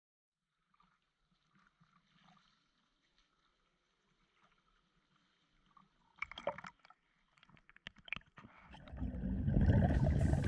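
Near silence, then about six seconds in water splashing and slapping against a camera held at the waterline, a few sharp splashes, growing near the end into a louder, steady rush of water.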